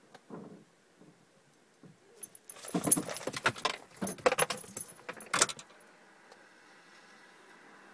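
Small metal pieces jangling together in a rapid, clattering run for about three seconds, starting about two seconds in.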